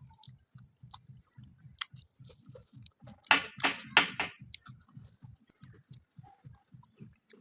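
Close-miked chewing of samosa: a steady rhythm of about four to five soft chews a second, with a short run of three or four loud, crisp crunching bites a little past the middle.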